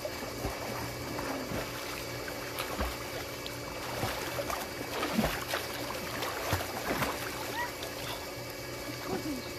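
Pool water splashing and sloshing as swimmers stroke through it, with irregular splashes strongest in the middle. A steady hum runs underneath.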